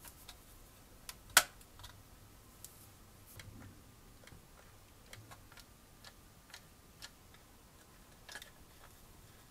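Irregular light clicks and taps of small parts being handled, with one sharp click about a second and a half in.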